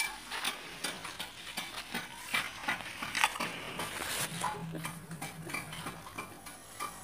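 Metal trowel scraping and crunching through gravel and soil, a run of irregular scrapes and small clicks.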